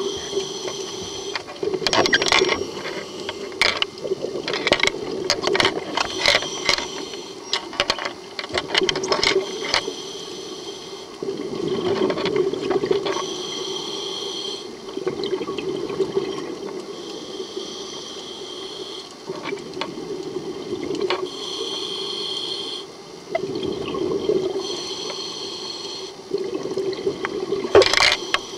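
A scuba diver breathing through a regulator underwater, heard over a steady low hum. Bursts of crackling exhaust bubbles come in the first half and again near the end, and a hiss of about two seconds with each inhale comes every few seconds in the middle.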